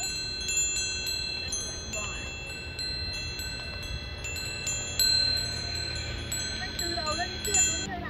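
Metal chimes ringing: many light, overlapping strikes of several clear, sustained tones that cut off abruptly near the end.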